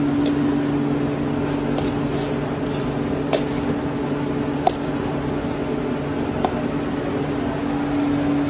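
Steady hum of a clog-moulding press's motor running, with a few sharp clicks scattered through it while plastic granules are poured into the mould.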